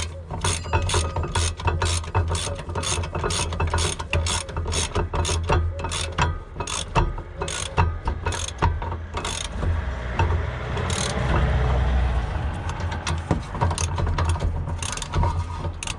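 Hand ratchet clicking in a fast, even run of strokes, about three clicks a second, with a denser rattling stretch about ten seconds in.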